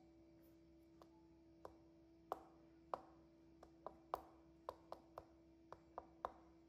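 About a dozen sharp, short knocks at uneven intervals, loudest around the middle, over a steady low electrical hum.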